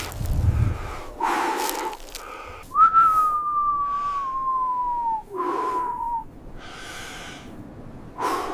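Heavy breathing in short breathy gusts, with a long whistling tone a few seconds in that slides slowly down in pitch, then a shorter one right after it.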